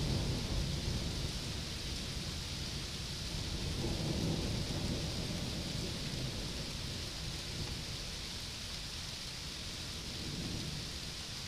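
Thunderstorm: steady rain hissing, with low thunder rumbling underneath that swells about a second in and again around four seconds.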